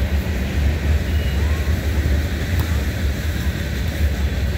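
Wind buffeting an outdoor microphone: a steady, heavy low rumble, with faint voices of players and spectators.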